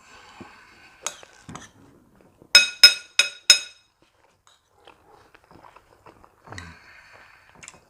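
Cutlery clinking against a plate: four sharp, ringing clinks in quick succession about two and a half seconds in, with faint eating sounds around them.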